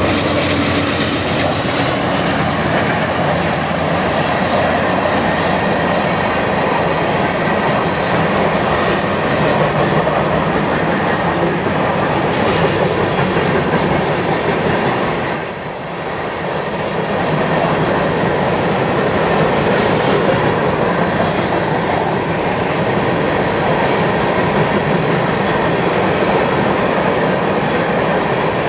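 CN freight train rolling past close by: the diesel locomotives go by in the first seconds, then a long string of steel hopper cars with a steady rumble of wheels on rail and clicking over rail joints. A thin, high wheel squeal rises over the rumble for several seconds in the middle.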